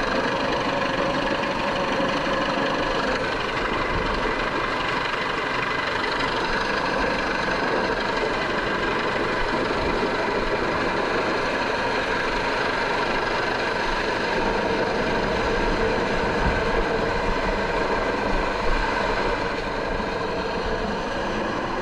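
US Coast Guard MH-65 Dolphin twin-turbine helicopter hovering low overhead: steady rotor noise and turbine whine, with a few slightly louder moments about three-quarters of the way through.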